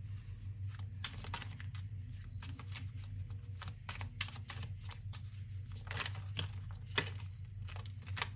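Tarot cards being handled and shuffled: quick, irregular slaps and rustles of card stock, over a low steady hum.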